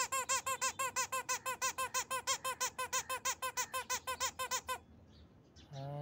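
Toy parrot giving a rapid, even run of squeaky chirps, about eight a second, each rising and falling in pitch, stopping suddenly about five seconds in.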